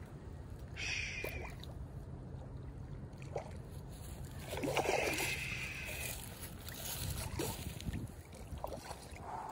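Footsteps on grass, a few soft steps, over a steady low rumble.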